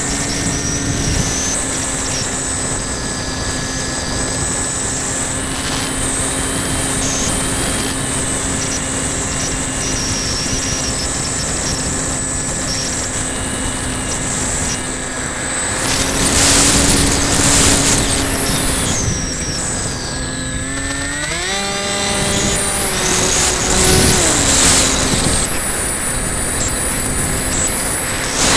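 Onboard sound of a Bixler 2 foam RC glider in flight: its electric motor and pusher propeller running at a steady pitch, with wind rushing over the airframe. The wind rush swells twice, and about 21 seconds in the motor pitch climbs sharply as the throttle opens, dropping back a few seconds later.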